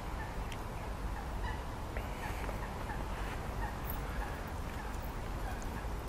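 Waterfowl calling in scattered short notes over a steady low rumble.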